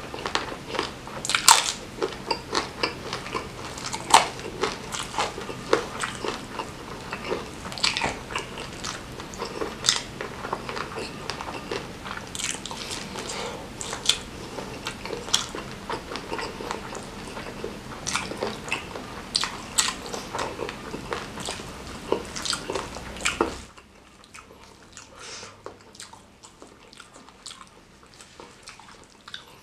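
Close-miked chewing of a mouthful of nasi Padang eaten by hand: a dense run of wet mouth clicks and crunchy bites. About 23 seconds in it drops suddenly much quieter, leaving only faint chewing clicks.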